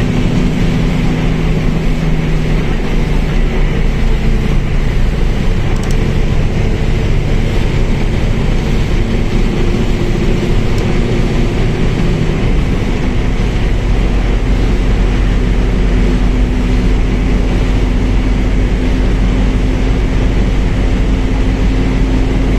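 Mercedes-Benz OF1721L bus's diesel engine running under way, its steady note shifting in pitch a few times, along with drivetrain and road noise.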